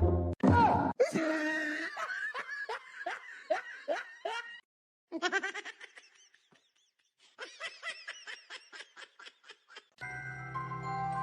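A short, loud, sudden sound, then laughter: two bouts of quick repeated laughs, about three or four a second, with a pause of a few seconds between them.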